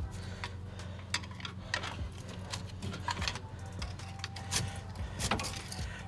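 Scattered metallic clicks and clinks as a rusty front brake caliper is pried with a screwdriver and worked off its bracket, over a steady low hum.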